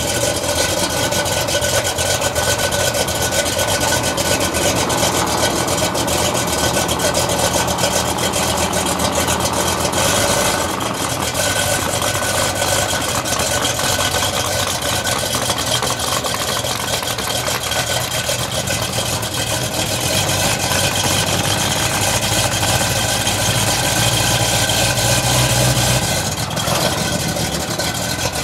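Fox-body Mustang's swapped 3.7 L Cyclone V6 idling steadily as the car backs off a trailer, its note swelling briefly near the end.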